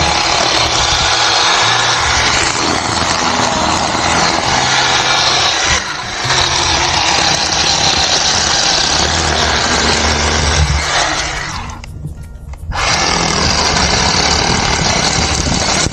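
Worx 20-volt cordless 10-inch electric chainsaw running and cutting wood with a loud, steady rasping whir. It dies down briefly about twelve seconds in, then cuts again.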